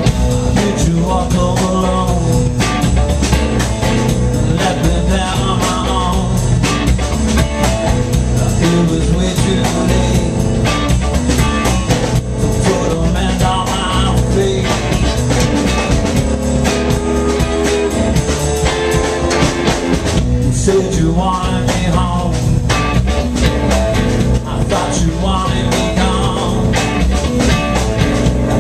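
Live rock-blues band playing a song: electric guitars, bass, drum kit and keyboard, with a male lead vocal.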